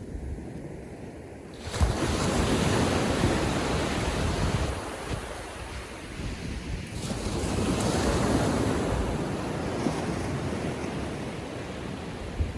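Atlantic surf on the beach: a wave breaks suddenly about two seconds in and rushes up the shore, easing off, then a second wave swells and washes in around the middle before fading.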